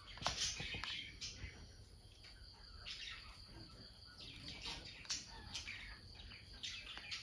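Faint chirping of small birds, repeated throughout, with a few light clicks in the first second from a plastic spoon in a ceramic cup.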